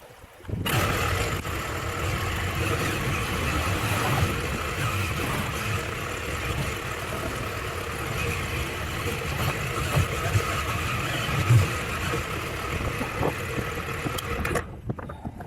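Motorcycle engine running steadily, probably the rider's adventure bike, under a layer of noise. It begins abruptly just under a second in and cuts off suddenly near the end.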